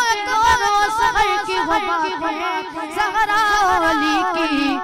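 A cappella naat: a man's voice singing a drawn-out, ornamented melodic line with wavering, gliding pitch over a steady held vocal drone, with no instruments.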